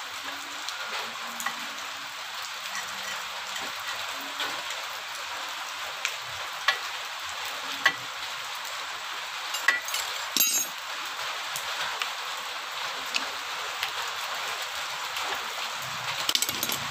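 Scattered small metal clicks and clinks from a motorcycle rear brake caliper and its brake pads being handled and fitted, with a sharper clatter about ten seconds in, over a steady background hiss.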